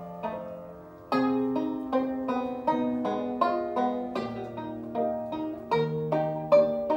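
Banjo and grand piano playing an instrumental duet, the banjo picking the melody over held piano notes. The music dies down briefly, then comes back strongly about a second in.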